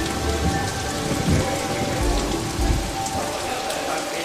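Steady heavy rain with low rumbles of thunder.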